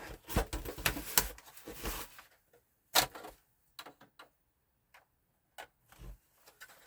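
Hands handling console hardware and cables: a quick run of clicks and light knocks, then a few single sharp clicks spaced out.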